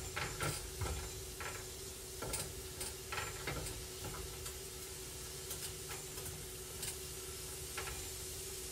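Minced garlic sizzling in butter in a hot nonstick frying pan while a silicone spatula stirs and scrapes it, with soft taps and scrapes over the first few seconds, then a steadier sizzle.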